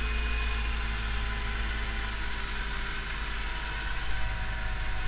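Pronar 82SA tractor's diesel engine running steadily while pulling a cultivator, heard from inside the cab.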